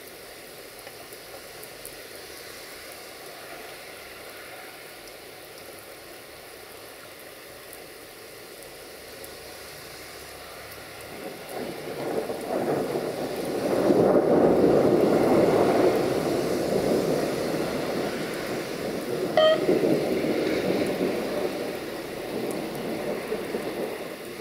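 Steady rain, then a DB Class 628 diesel multiple unit coming closer over the station points: its engine and wheel noise swell from about halfway through and stay loud to the end. A short, sharp high tone sounds once about three-quarters of the way in.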